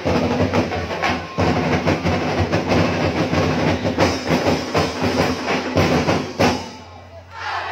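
Music with busy, fast percussion and drumming, thinning out briefly near the end before picking up again.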